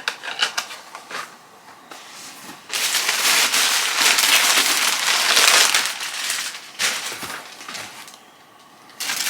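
Packaging crinkling and rustling for about four seconds as an item is handled and unwrapped, after a few light clicks of handling.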